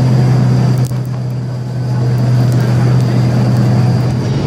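Bus engine and tyre noise heard from inside the cabin while cruising at steady speed: a loud, even low drone with a hiss of road noise.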